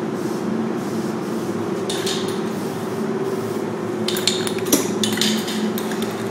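A steady low hum, with a few bursts of sharp metallic clinking and rattling about two seconds in and again around four to five seconds in.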